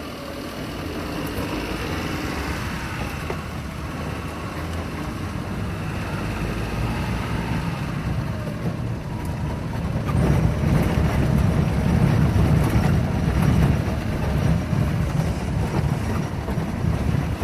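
A vehicle driving, heard from on board: a steady engine and road rumble that grows louder about ten seconds in.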